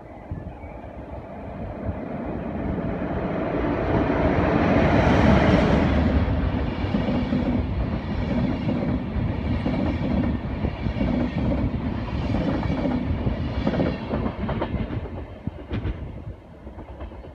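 Locomotive-hauled passenger train passing through without stopping. The electric locomotive's rumble builds to a peak about five seconds in, then the coaches' wheels clack over the rail joints about once a second. The sound fades as the train draws away near the end.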